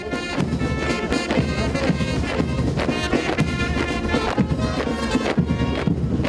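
Brass band playing a military march, with a steady beat.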